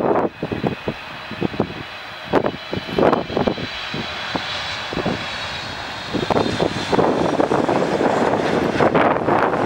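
Jet engines of a Boeing 777 freighter on final approach and touchdown: a steady high whine over a broad rush that grows louder from about six seconds in as the jet passes on the runway, with gusts of wind buffeting the microphone.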